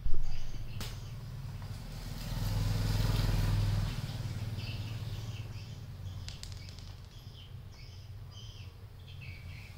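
A motor vehicle's engine running nearby as a low hum, swelling to its loudest about two to four seconds in and then easing off. A sharp knock comes at the very start, and faint high chirps come and go.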